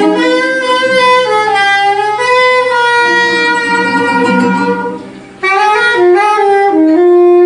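Saxophone playing a melody over a live jazz band, with long held notes stepping up and down; the phrase breaks off about five seconds in and a new one of quicker notes begins.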